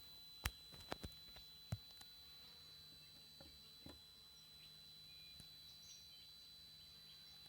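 TriStar TS-MPPT-60 solar charge controller giving off a faint, steady high-pitched squeal, with a few sharp clicks in the first two seconds and faint birdsong.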